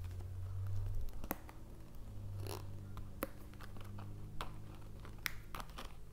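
Light clicks, taps and a short rustle of plastic cards being handled and pushed into a new wallet's still-tight card slots, over a low steady hum.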